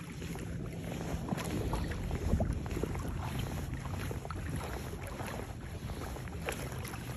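Wind rumbling on the microphone, with a stronger gust about two seconds in, over small choppy waves lapping and slapping against a Hobie Outback kayak's plastic hull.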